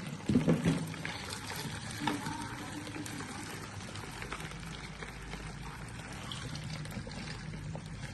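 Water trickling and pouring, with a few brief splashes or knocks in the first second.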